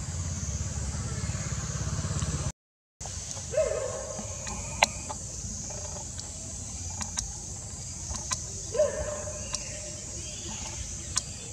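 Outdoor ambience with a steady high hiss. A low rumble runs for the first two seconds and stops at a brief dropout. After that come scattered sharp clicks and two short, bending calls, the first a few seconds after the dropout and the second about five seconds later.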